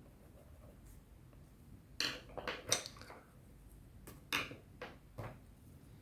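Colored pencils clicking and clattering against each other as they are picked up and set down: a quick cluster of clicks about two seconds in, then a few more single knocks near the end.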